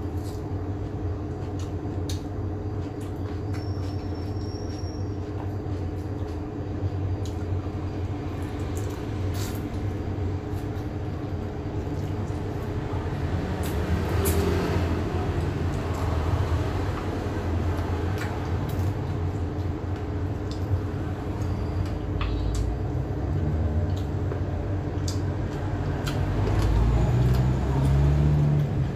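A steady low mechanical hum with a few scattered sharp clicks. The hum swells louder near the end.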